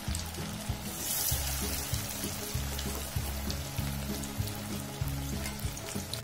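Dahi kebabs sizzling and crackling in hot oil in a kadai, with the sizzle swelling about a second in, under background music with a steady bass line.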